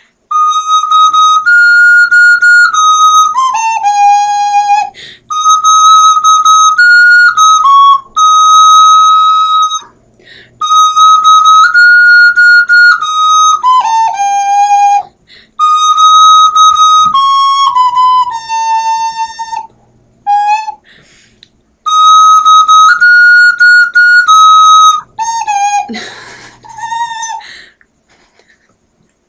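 Ocarina playing a short melody of held notes that rises a step and then falls to a low held note, repeated five times with short pauses for breath. Near the end a brief burst of noise cuts across the last phrase.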